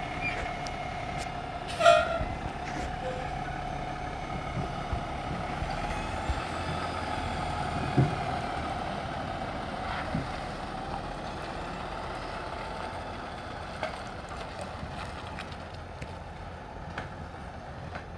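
Autocar ACX front-loader garbage truck's diesel engine running as the truck drives slowly past and pulls away, with a steady whine that fades toward the end. A brief squeal about two seconds in, like an air brake.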